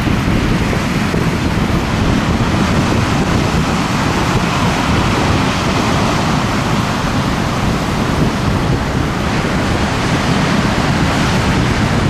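Heavy storm surf breaking against a concrete harbour wall and washing over a shingle beach, a continuous loud roar of breaking water with one surge swelling around the middle. Strong wind buffets the microphone with a low rumble.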